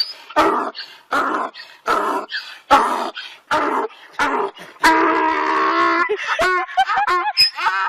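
An animal calling over and over: short pitched cries about once a second, a longer held cry around five seconds in, then a quick run of rising-and-falling cries near the end.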